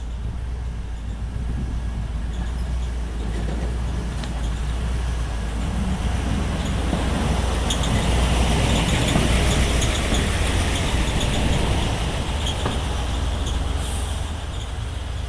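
Rail track machine running along the line on its arrival, a steady low rumble that grows louder to a peak about eight to ten seconds in and then eases off.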